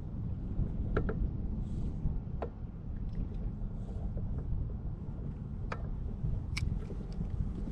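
Wind buffeting the microphone as a steady low rumble, with a few light clicks and taps scattered through it.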